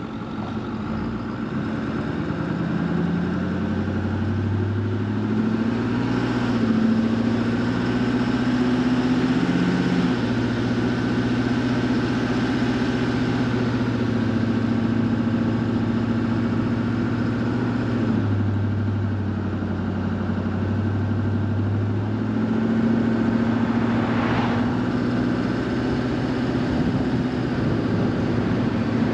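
Truck engine running while driving, with road and wind noise around it. The engine note climbs several seconds in, holds, drops about two-thirds of the way through and climbs again, as the truck speeds up and shifts.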